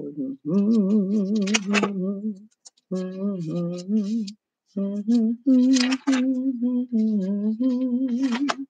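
A woman humming a slow tune in short phrases, with brief pauses between them.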